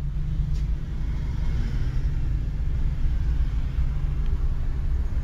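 Steady low rumble of idling vehicle engines in a traffic jam, heard from inside a pickup's cab.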